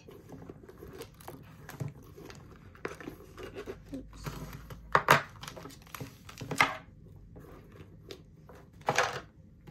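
Small personal items (a compact, card wallet, key pouch and lipstick) being handled and set down on a wooden tabletop: rustling and crinkling with a few light knocks. The sharpest knock comes about five seconds in, with two more later on.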